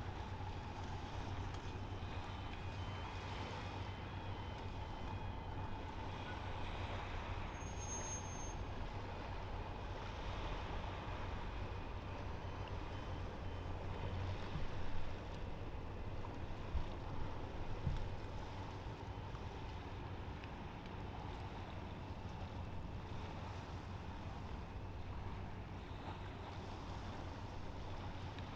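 Steady low drone of large ships' engines across the water, over harbour background noise. Faint repeated beeping sounds in the first few seconds, and a few brief knocks come about halfway through.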